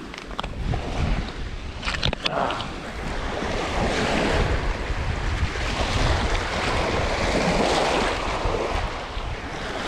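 Small waves lapping and washing on a stony lakeshore, with wind buffeting the microphone; the wash grows louder about three seconds in as the feet reach the water's edge. A few sharp clicks in the first couple of seconds, from loose shale stones underfoot.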